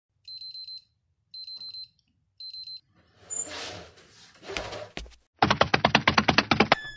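Electronic alarm clock beeping: three bursts of quick high-pitched beeps about a second apart. Then rustling and a thud, followed by a loud, rapid clatter of about nine clicks a second that lasts over a second and stops abruptly.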